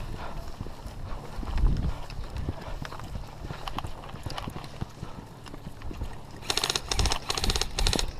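Footsteps of an airsoft player running over dry ground and brush, a series of uneven thumps and crunches. Near the end comes a rapid rattling burst lasting about a second and a half.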